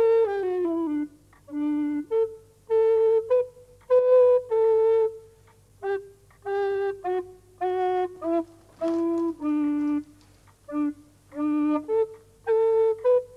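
A solo flute-like woodwind playing a slow, unaccompanied melody of separate notes in short phrases, with brief pauses between them.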